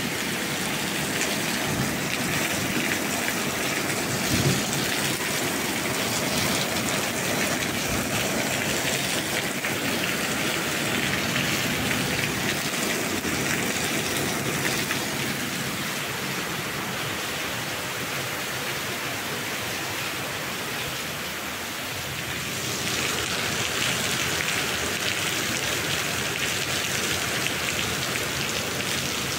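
Steady rain falling, an even hiss of drops throughout, with one brief louder thump about four seconds in.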